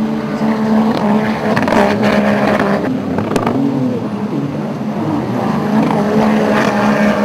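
Racing runabout jet ski engines running at high revs, their pitch dipping and rising several times as the craft corner, over the hiss of spray.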